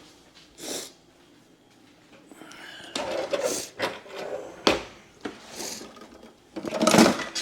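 Kitchen handling noises: a string of short knocks, rubs and clatters, the loudest near the end.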